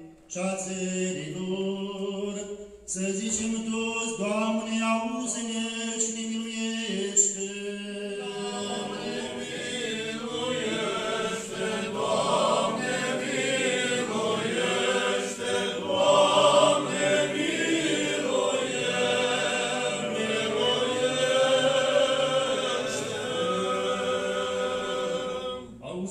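Orthodox liturgical chant sung a cappella by a group of voices, a low held note under the moving melody, growing fuller about ten seconds in.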